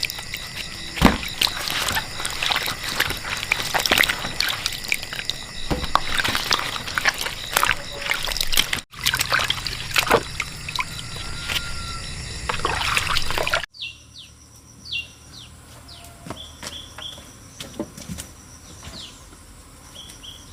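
Water sloshing, trickling and pouring, with knocks and clatter of handling. After a cut near 14 s it gives way to a quieter stretch with short bird chirps.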